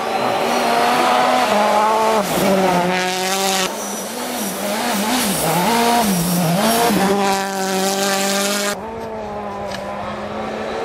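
World Rally Cars driven flat out on snowy gravel roads, engines revving hard with pitch swinging up and down through gear changes as they pass. The sound jumps abruptly several times from one car's pass to the next.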